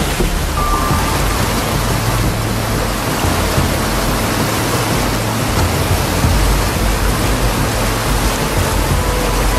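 Whitewater rapids rushing over boulders: a steady, loud noise of churning water.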